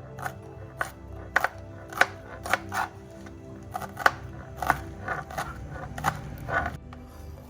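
About a dozen sharp knocks and clicks of kitchen food preparation at uneven intervals, over soft background music; the knocks stop shortly before the end.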